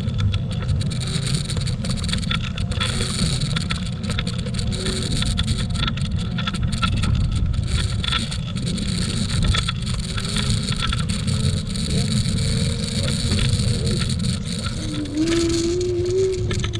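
AOVO electric scooter ride on asphalt: a loud low rumble of wind on the scooter-mounted camera's microphone and tyres on the path, with frequent small rattles and knocks over bumps. Near the end, an electric motor whine comes in, rising slightly in pitch.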